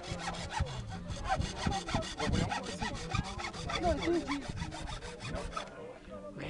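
Bamboo being cut with a hand saw in quick, even strokes, about six or seven a second, stopping shortly before the end.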